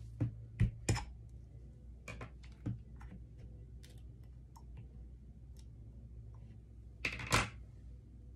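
Sharp clicks and taps of a small plastic-capped resin bottle being handled on a granite countertop as its cap and seal are worked open. Several loud clicks come in the first second, fainter scattered ticks follow, and a louder cluster of clicks comes about seven seconds in.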